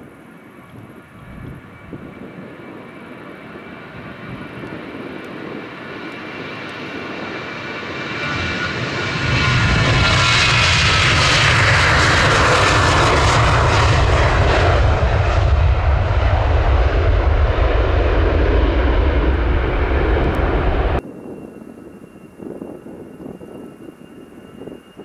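Heavy jet airliner on its take-off run, passing close. The engine noise swells for about nine seconds into a loud, deep rumble, with whining tones that fall in pitch as it goes by. The sound cuts off suddenly about four seconds before the end, leaving a fainter sound with a steady high whine.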